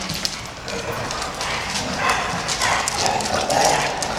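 Several dogs' nails clicking and scratching on a hard smooth floor as they jostle and move around together, many quick irregular clicks.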